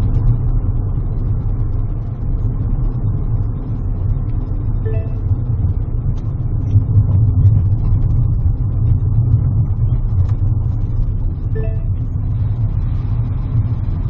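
A car's engine and road noise heard from inside the cabin, a steady low rumble while driving. A short two-note electronic tone sounds about five seconds in and again near the end.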